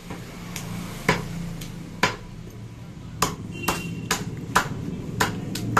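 Heavy butcher's cleavers chopping goat meat and bone on a wooden stump block: about ten sharp chops at an uneven pace, with a short pause before they come faster, over a low steady hum.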